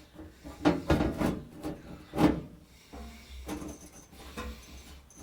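Sheet-metal transmission tunnel panel being set into a truck cab floor and shifted by hand: a run of knocks and scrapes, the loudest about one and two seconds in, then lighter knocks.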